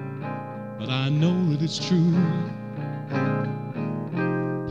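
Archtop guitar playing an instrumental break in a bluesy song: a lead line with bent, wavering notes over plucked chords.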